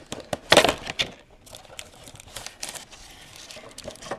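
Plastic packaging of a sealed box of trading cards crinkling and clicking as it is opened and the packs handled, with a loud burst of rustling about half a second in.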